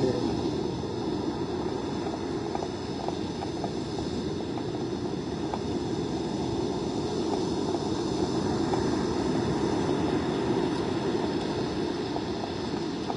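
Steady rushing noise of storm wind on the microphone and surf, with no single event standing out.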